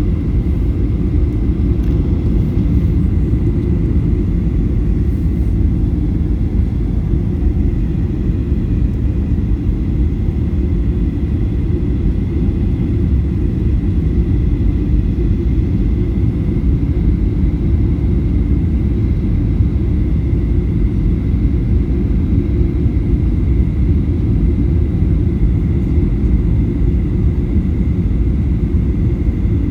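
Aircraft noise: a steady low rumble with a thin, steady high whine over it, unchanging throughout.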